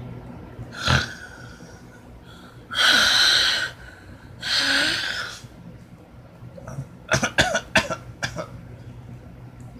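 A man coughing hard: a short cough about a second in, two long harsh coughs around the middle, then a quick string of short coughs near the end.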